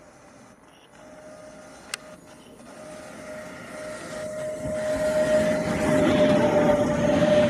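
Traxx electric locomotive hauling a container freight train, approaching and passing close by. Its sound grows steadily from faint to loud, a rumble of wheels on rails carrying a steady whining tone, with a single sharp click about two seconds in.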